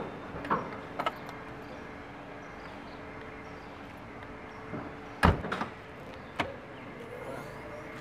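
Car doors of an MPV: latch clicks, a door shut with a loud thud about five seconds in, then a click as the rear hatch is unlatched, over a low steady hum.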